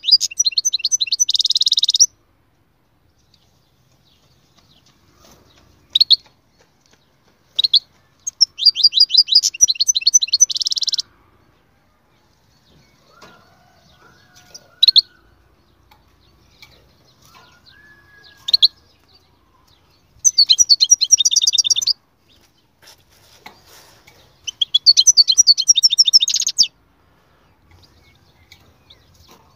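European goldfinch singing: bright, fast twittering phrases of rapid high notes and trills, each lasting a second or two and repeated several times with pauses of a few seconds between them.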